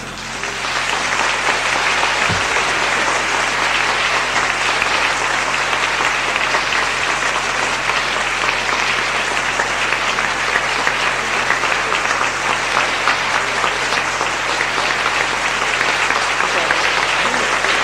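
Congregation applauding: many hands clapping, swelling within the first second and then holding steady.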